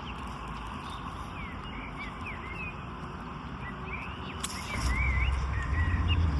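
Small birds chirping and twittering over a steady outdoor background hiss; near the end a louder low rumble comes in.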